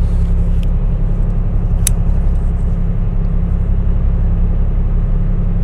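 Steady low engine drone of a high-speed passenger ferry, heard inside its cabin. A single sharp click comes about two seconds in.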